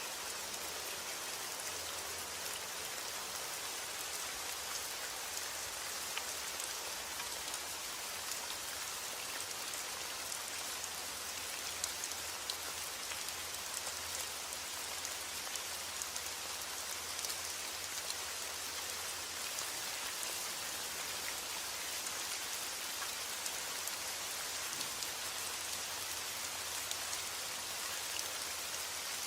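Steady heavy rain falling on a roof, a dense even hiss with many small sharp drop ticks and a faint low rumble underneath.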